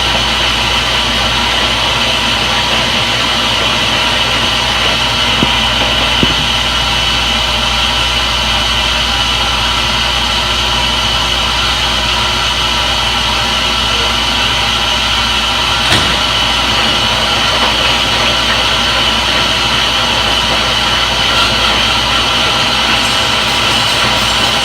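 Front-load washing machine running in its spin cycle: a steady, loud mechanical hum with a high whine over it and a few faint clicks.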